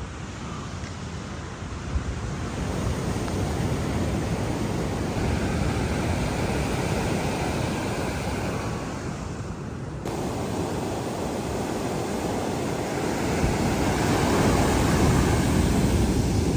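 Ocean surf breaking, mixed with wind rushing over the microphone. The noise grows louder over the stretch, with a sudden change about ten seconds in.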